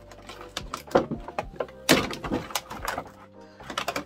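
Clear plastic doll packaging crinkling and crackling as it is handled and pulled apart, with irregular sharp crackles, the loudest about two seconds in.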